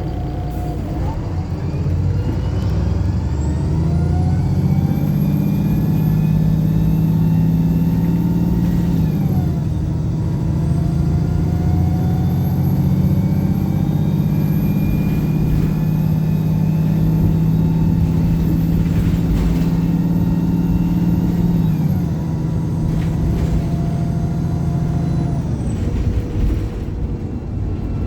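Diesel engine of a Pulsar single-deck bus accelerating hard under kickdown. The revs climb over the first few seconds, dip briefly once about nine seconds in, then are held high and steady with a high whine before dropping away about 22 seconds in.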